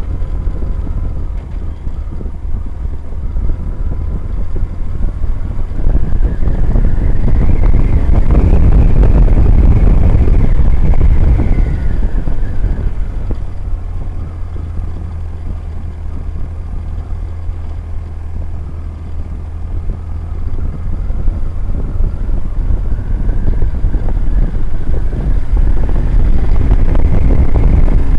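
Motorcycle riding at road speed, heard from a camera on the bike: a BMW GS boxer-twin engine running under heavy wind noise on the microphone. It gets louder about six seconds in, eases off midway, and builds again near the end.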